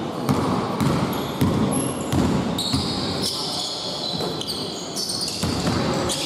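A basketball bouncing on an indoor court during play: a series of sharp bounces, with short high squeaks and voices.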